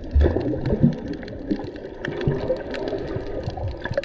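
Water heard through a camera held underwater: a muffled bubbling and gurgling rush, with a couple of dull low thumps in the first second.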